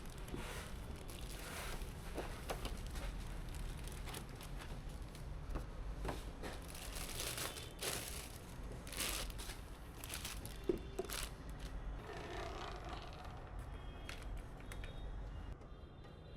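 Hands handling PC parts and their packaging: irregular crinkling and rustling with small clicks, one sharper click about ten and a half seconds in, over a steady low hum.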